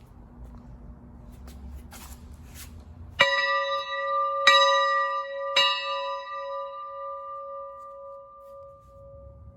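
A bell struck three times about a second apart, each stroke ringing on in a long, slowly fading hum that pulses as it dies away.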